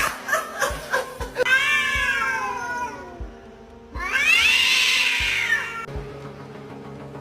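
A cat giving two long, drawn-out meows, the first sliding down in pitch and the second, louder one rising and then falling, over background music.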